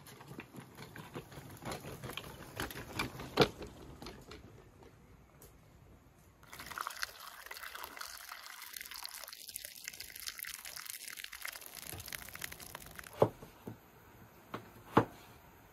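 A stream of water pouring into an enamel bowl of cross-scored tomatoes, a steady splashing hiss for about six seconds through the middle, scored tomatoes being the usual preparation for peeling. Scattered light clicks come before it, and a couple of sharp knife knocks on a wooden cutting board near the end.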